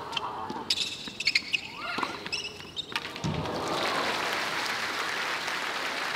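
Tennis rally on a hard court: the ball is struck sharply back and forth a few times. The point ends about three seconds in, and the crowd breaks into steady applause.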